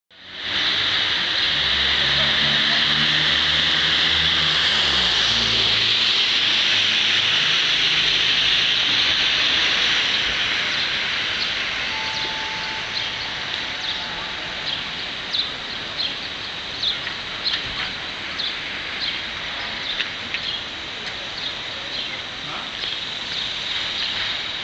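Outdoor rain ambience on a wet village street: a steady hiss, with a vehicle engine passing and dropping in pitch in the first few seconds. After about ten seconds the hiss eases, and short high chirps come every second or so.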